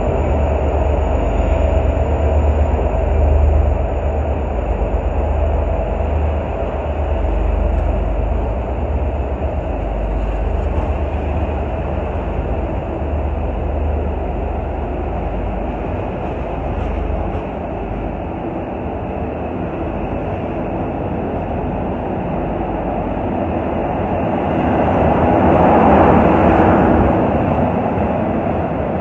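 V/Line N class diesel-electric locomotive pulling its passenger train out of the station: a low engine rumble that fades over the first half, then the steady rolling noise of the passing carriages, which swells briefly near the end.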